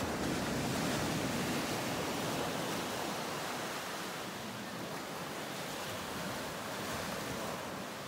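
Ocean surf washing on a shore, a steady rush that swells near the start and then slowly eases.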